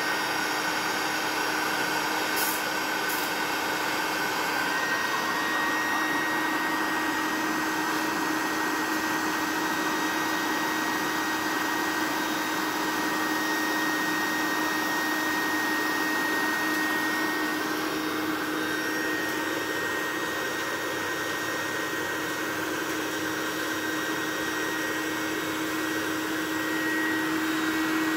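Handheld electric air pump running steadily, its motor whining at a constant pitch over a rush of air as it inflates a vinyl paddling pool through the valve.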